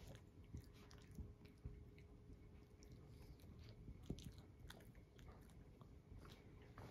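Near silence with faint small wet clicks and rustles of a tabby cat and a small dog grooming and nuzzling each other on a cloth-covered chair, with one slightly louder tap about four seconds in.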